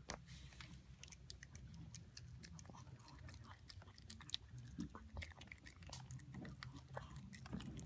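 Small long-haired dog eating wet loaf dog food mixed with dry kibble from a stainless-steel bowl: faint, irregular chewing with many small clicks and smacks.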